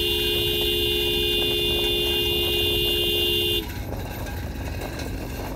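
A vehicle horn held down in one long, steady two-tone blast that cuts off suddenly about three and a half seconds in, over a continuous low rumble.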